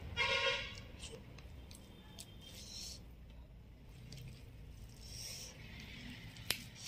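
Mouth sounds of someone eating rice and bitter gourd fry by hand: chewing, soft wet clicks and a few short hissing in-breaths through the teeth as the chili heat burns the mouth. A brief pitched tone sounds about a quarter second in, and a sharp click comes near the end.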